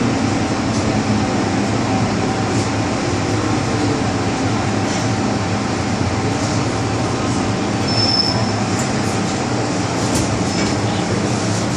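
MTR M-Train metro car heard from inside while running, a steady rumble of wheels and motors as it draws into a station. A brief high squeal comes about eight seconds in.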